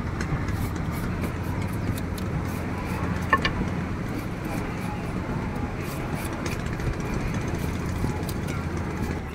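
Steady background din of a busy market, with indistinct voices and a few light clicks scattered through it.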